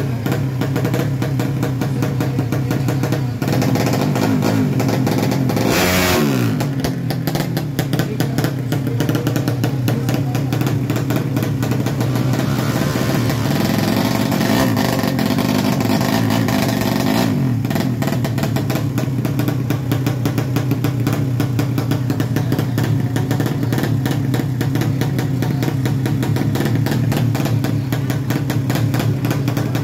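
Drag-race motorcycle with a horizontal single-cylinder engine and open exhaust, running at idle on the start line. It is blipped once sharply about six seconds in and falls back to idle. It runs louder and rougher for a few seconds near the middle.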